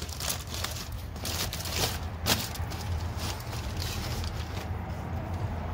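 Aluminium foil crinkling and rustling in irregular small crackles as a foil-wrapped rack of smoked ribs is opened and handled with rubber gloves, over a steady low rumble.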